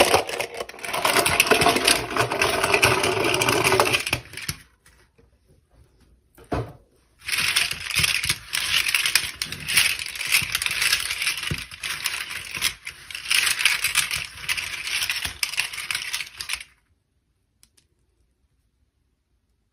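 Crackling, rattling handling noise in two long stretches with a short pause and a single click between them, stopping suddenly about three seconds before the end.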